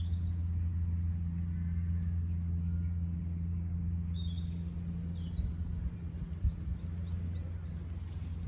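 Small birds chirping in quick short calls over a steady low hum.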